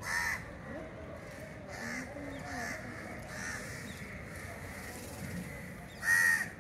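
Crows cawing: a loud caw at the start and another about six seconds in, with fainter caws between, over a low murmur of distant voices.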